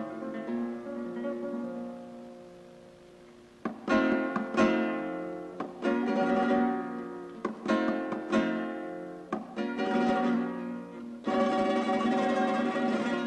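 Background music on acoustic guitar: a chord rings and fades away, then from about four seconds in sharp strummed chords follow one after another.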